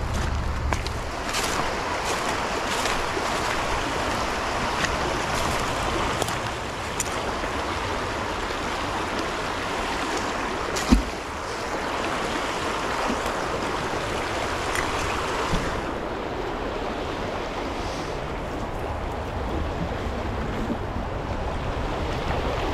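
Creek water rushing steadily, with scattered faint clicks and one sharp knock about halfway through.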